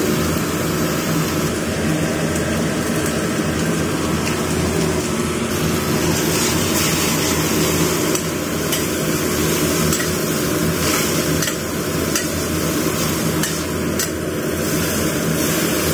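Vegetables stir-frying in a stainless steel wok: a steady sizzle, with a metal spatula clanking and scraping against the pan every so often.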